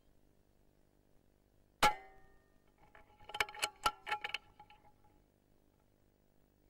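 A single sharp rifle shot about two seconds in, with a short ringing tone after it, followed about a second and a half later by a quick run of five or six clicks and rattles.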